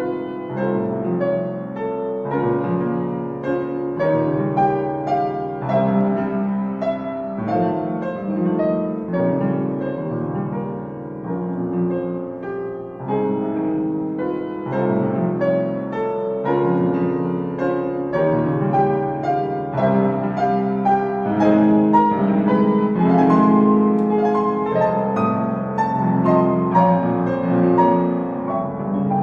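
Piano piece playing: a continuous flow of notes and chords.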